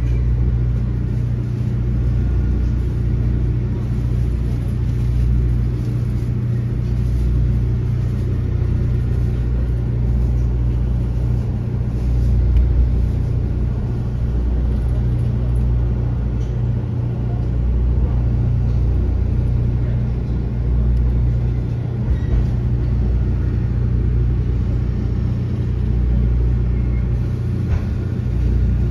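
Steady low hum and rumble inside a JNR-era 455/413 series electric train car, with a few faint clicks.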